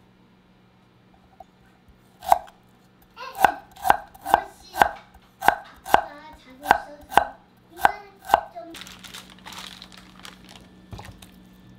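Knife chopping on a cutting board: about eleven sharp chops at roughly two a second, followed near the end by a softer rustling noise.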